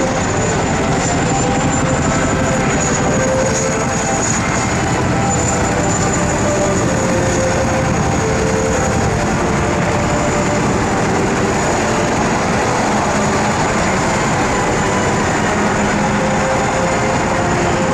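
CH-47 Chinook tandem-rotor helicopter hovering low and setting down: loud, steady rotor chop from its twin rotors over the high whine of its turboshaft engines.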